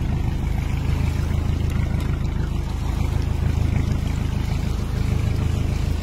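Small fishing boat's engine running steadily at low speed, a constant low hum with water noise over it.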